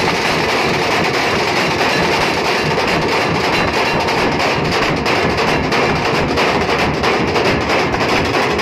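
Nashik-style dhol-tasha ensemble playing: many large barrel dhols beaten with sticks over fast tasha drumming, a loud, dense, unbroken rhythm.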